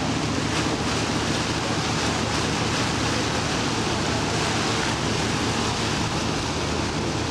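Steady low drone of a motorboat engine under way, with rushing water and wind noise over it.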